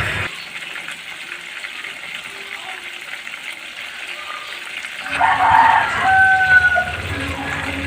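Chicken frying in hot oil: a steady sizzle. About five seconds in it grows louder, and a few short held tones come in over it.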